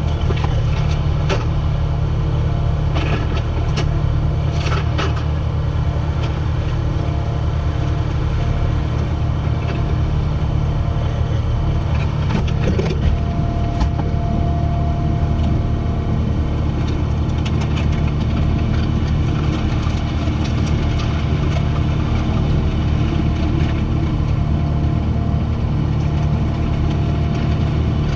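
Kubota SVL75-2 compact track loader's diesel engine running steadily, with a few short knocks and rattles.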